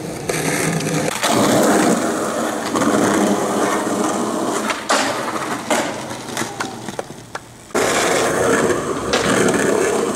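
Skateboard wheels rolling over concrete, with several sharp clacks of the board popping and landing. The sound dips and then comes back abruptly about three-quarters of the way through.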